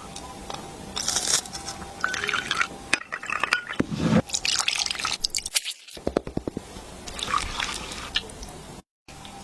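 Sauces and garlic water being poured over cut chicken legs, and the wet meat being squished as the marinade is mixed in. The sound comes in several short clips with abrupt cuts between them.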